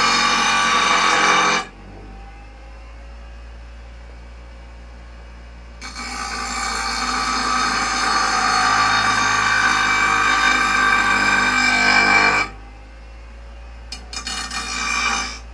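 A power grinder sharpening a steel lawnmower blade's cutting edge: two long, steady passes of harsh, ringing metal-on-abrasive grinding. The second pass swells in over about a second and cuts off suddenly, and a low hum carries on between the passes. A few brief touches of grinding come near the end.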